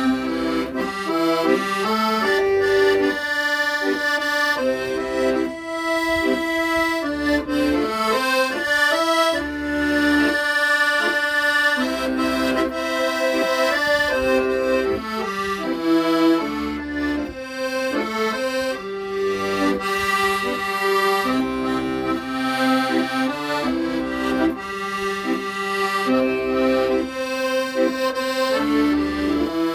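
Accordion playing a slow, sentimental melody over held bass and chord accompaniment.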